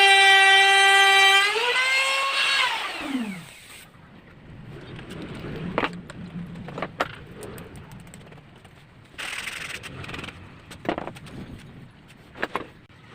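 A high-speed electric power tool motor, used to trim plywood edges, running with a steady whine, then switched off and winding down to a stop over about two seconds. This is followed by a few sharp knocks and clicks of the workpiece and tool being handled.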